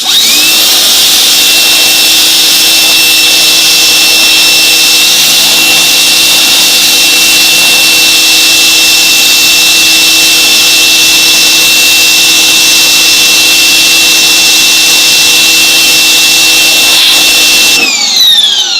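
Electric 1800 psi pressure washer starting when its trigger is squeezed, its motor whining up to speed. It runs steadily with the hiss of the 15-degree jet on the deck boards, then winds down with a falling whine about a second before the end as the trigger is released.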